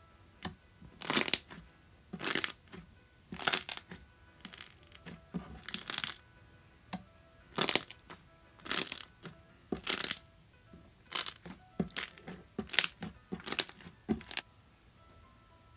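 Slime being squeezed and pressed by hand, a short noisy squish roughly once a second, over soft background music.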